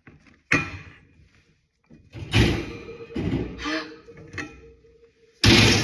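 A metal cake pan is turned upside down and knocked, with several thuds. Near the end comes the loudest thud as the pineapple upside-down cake, with its hot caramel topping, drops out of the pan onto the plate, a big sound.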